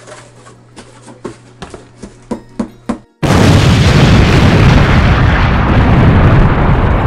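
Sharp clicks and crackles of a cardboard box's flaps being opened, growing louder. About three seconds in, after a split second of silence, a very loud explosion sound effect: a sudden blast that rumbles on heavily for several seconds.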